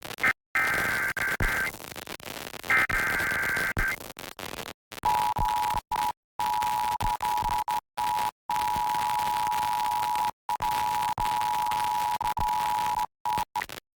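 Emergency Alert System header: two short buzzing bursts of digital alert data, then about five seconds in the steady two-tone EAS attention signal, held for about eight seconds. The tones announce the flash flood warning that follows. Static hiss runs under it all, with repeated brief dropouts.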